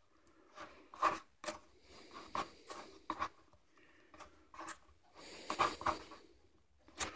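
A paintbrush stirring black into paint on a palette: faint, irregular scratching and rubbing strokes.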